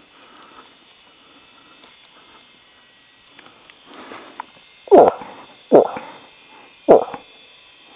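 Moose grunts: three loud, short grunts about a second apart, each dropping in pitch, after a fainter one around four seconds in.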